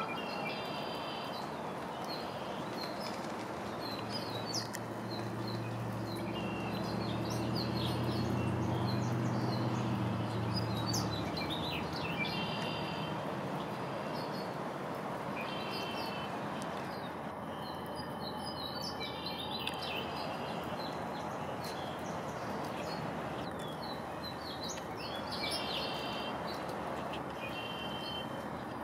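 Small birds chirping in short, repeated bursts over a steady hiss. A low hum swells and fades between about four and eleven seconds in.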